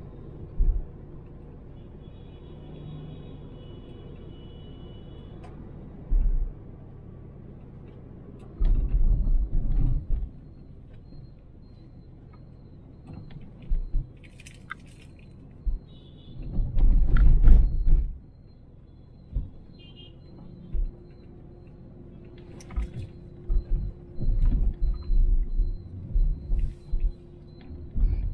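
Car road noise picked up by a dashboard camera while driving: a steady low rumble, broken several times by louder low rumbling surges lasting a second or two, with a few scattered light ticks.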